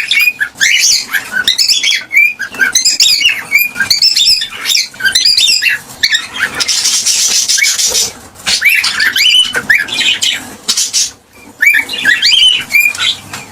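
Cockatiels chirping and calling in quick runs of short rising and falling notes, with a harsh, noisy call lasting over a second about six seconds in.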